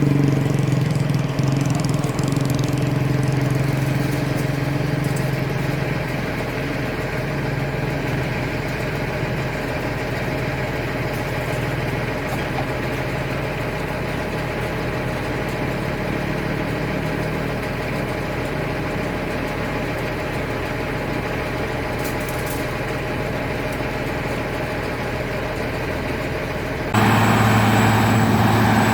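Heavy diesel engine of a Wirtgen W2000 cold milling machine running steadily. It eases slightly a few seconds in, then turns abruptly louder near the end.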